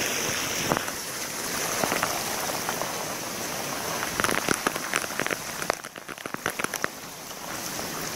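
Steady tropical-storm rain hissing down, with a run of sharp close drips and taps in the middle.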